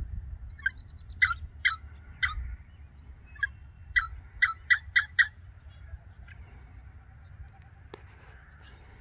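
A dark songbird perched on a bare sapling calling: about ten short, sharp, harsh notes, ending in a quick run of five just past the middle, then falling quiet.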